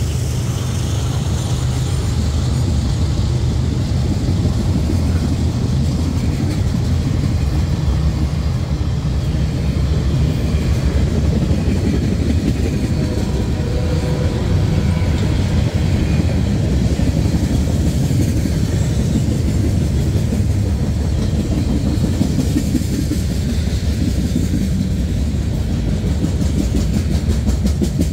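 A freight train's boxcars, tank cars and covered hoppers rolling past close by: a steady, loud rumble of steel wheels on the rails, with clacking from the wheels.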